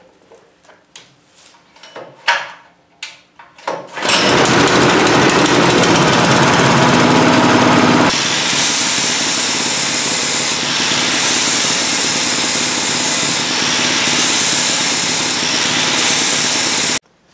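Small single-cylinder engine starting after a few knocks about four seconds in and running loudly; from about eight seconds in, an angle grinder grinds the freshly welded extension on its spinning crankshaft, the engine turning the shaft like a lathe. The noise cuts off suddenly near the end.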